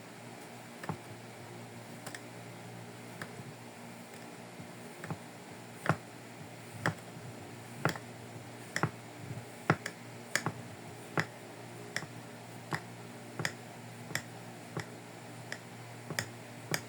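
Crisp clicks of a blade cutting through kinetic sand, sparse at first and then a regular run of roughly one and a half strokes a second. A steady low hum runs underneath.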